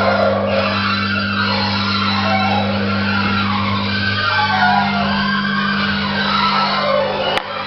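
Vintage 1970s lift running: a steady low mechanical hum whose tone shifts about four seconds in, with a sharp click near the end.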